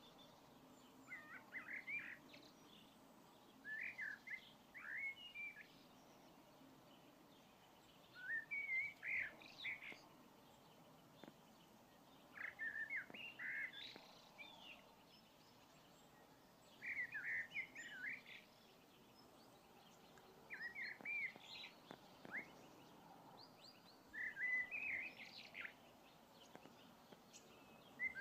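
A songbird singing short phrases of quick rising and falling notes, one phrase every four seconds or so, over faint steady outdoor background noise.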